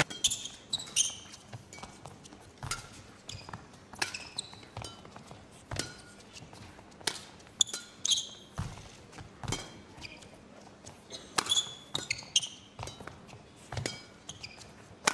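Badminton rally: rackets striking the shuttlecock in sharp cracks, roughly one a second, mixed with players' shoes squeaking and thudding on the court mat.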